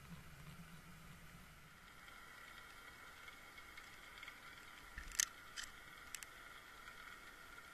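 Faint underwater ambience picked up by a Water Wolf underwater camera, a steady hum with a high whine in it, broken a little over five seconds in by about four sharp clicks.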